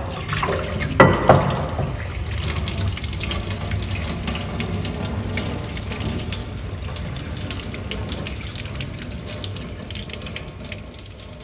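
A tap running into a sink, a steady rush of water, with two sharp knocks about a second in. The sound fades gradually toward the end.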